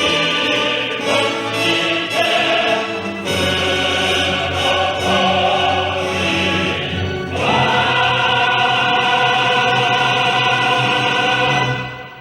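Choral and orchestral music: a choir singing with orchestra, swelling into a long held chord about two-thirds of the way through, then fading out at the very end.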